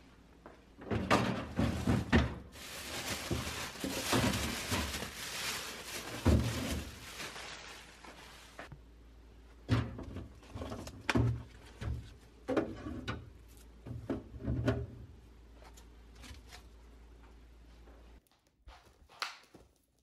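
Plastic refrigerator crisper drawers and produce being handled: drawers sliding and knocking shut, items set down with dull thunks, with a few seconds of steady rustling noise early on. A low steady hum runs underneath and stops near the end.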